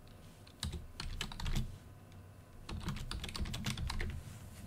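Typing on a computer keyboard: a few keystrokes about a second in, then a quicker run of keystrokes in the second half.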